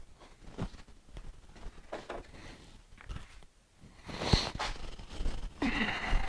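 Hand tools being handled while a tool pack is rummaged through: scattered light clicks and rustling, with one sharp knock about four seconds in.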